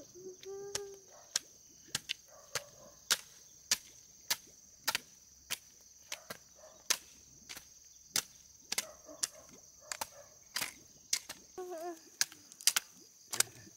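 A series of sharp knocks or strikes, about two a second, their loudness varying, over a steady high-pitched hum. A baby gives brief whimpers at the start and again near the end.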